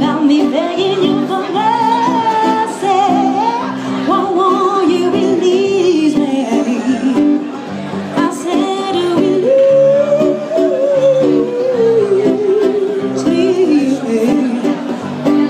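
A woman singing into a microphone with long, gliding held notes, accompanied by a strummed acoustic guitar.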